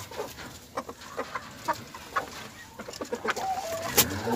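A hen gives short, scattered clucks while being held, with light rustling. Near the end a cow starts a long, low moo that rises and falls.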